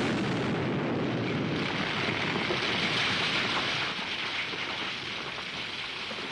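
Film sound effect of a bomb blast and the avalanche it sets off: a loud rushing roar that starts suddenly, swells, and then slowly dies away.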